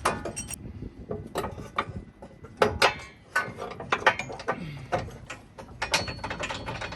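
Irregular metal clicks and clanks of steel parts and hand tools as a lift kit's front cross member is worked into place under a pickup.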